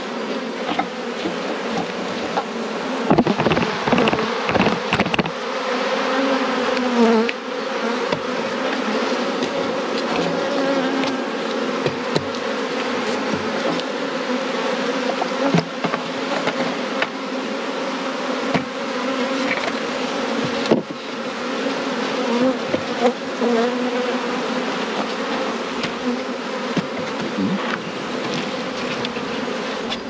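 Honeybees buzzing in a steady hum over an open nucleus hive as its frames are worked. A few knocks and bumps stand out, a cluster about three to five seconds in and a sharp one about two-thirds of the way through.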